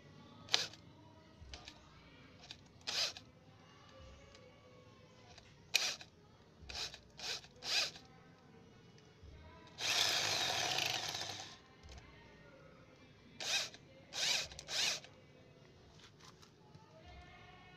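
Electric hand drill running in a series of short trigger bursts, with one longer run of about a second and a half near the middle, as its bit bores into a snapped steel exhaust stud in a motorcycle cylinder head.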